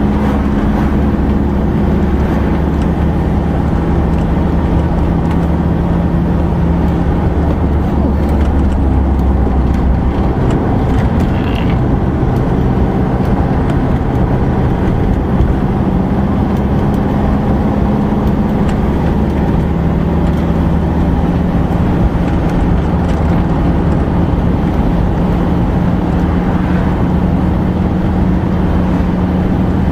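Motorhome driving at road speed, heard from inside the cab: a steady engine hum over tyre and road noise, its pitch dipping and rising a little, with a few light rattles from the cab.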